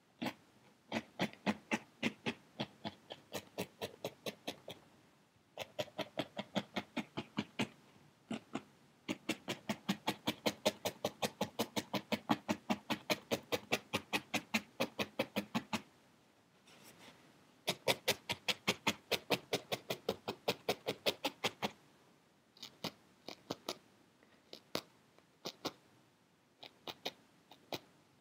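A felting needle stabbing repeatedly through wool into a foam pad, in quick even runs of about five pokes a second broken by short pauses. The pokes grow sparser and uneven near the end.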